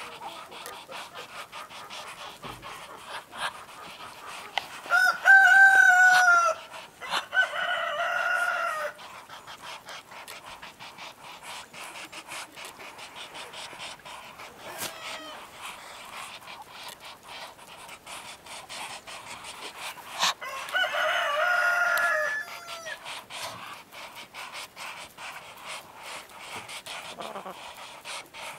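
Rooster crowing twice, about fifteen seconds apart, loud and close; faint clicks between the crows.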